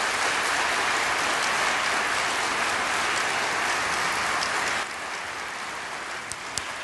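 Audience applauding: dense, even clapping that thins out to lighter clapping about five seconds in.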